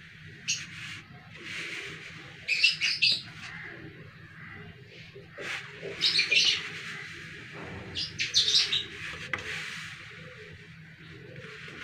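Small birds chirping in four quick bursts of several chirps each, over soft rustling from hands stretching and folding pulled-sugar patisa strands through flour.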